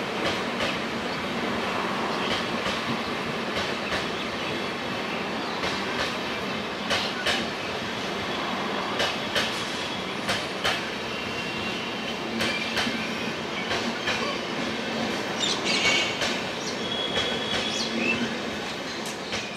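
LHB passenger coaches of an express train rolling past on the loop line, their wheels clacking irregularly over rail joints and points. Brief high wheel squeals come in the second half.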